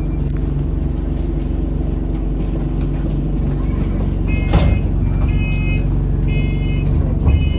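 ADL Enviro200 single-deck bus's diesel engine running steadily, heard from inside the cabin. From about four seconds in, a high electronic beep sounds about once a second, with a single knock at the first beep.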